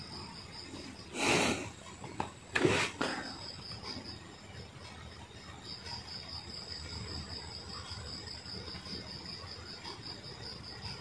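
Crickets chirping: a steady, high, pulsing trill. About a second in, and again under a couple of seconds later, two short hissing rushes of noise stand out louder than the trill.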